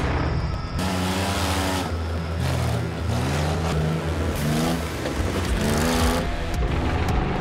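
Monster truck's engine revving as it accelerates, its pitch climbing in several rising sweeps over a steady low rumble.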